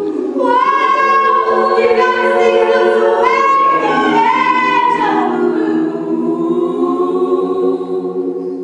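Mixed a cappella choir singing the closing phrase of a song, ending on a long held chord that dies away near the end.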